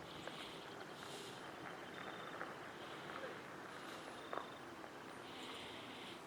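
Faint outdoor evening ambience: soft high chirps repeating about once a second, a brief sliding bird-like call about four seconds in, and a light knock just after it.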